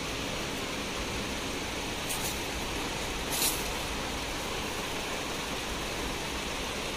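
Steady background hiss of shop room noise, with two brief high rustles about two seconds and three and a half seconds in.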